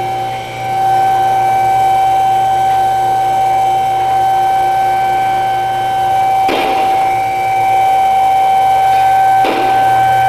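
A loud, steady, high-pitched machine whine that does not change in pitch, with two brief rustling noises in the second half.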